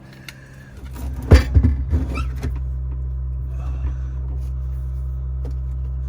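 A quick run of knocks and clatter, then a steady low machine hum starts and keeps going at an even level.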